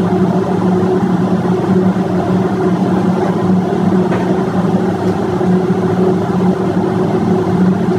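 Marine diesel auxiliary engines running steadily in a ship's engine room: a loud constant drone with an unchanging low hum.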